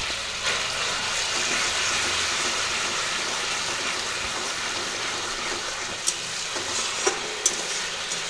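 Ginger-onion-garlic paste with turmeric sizzling in hot oil in a metal kadai, a steady frying hiss. A few sharp taps of the metal spatula against the pan near the end.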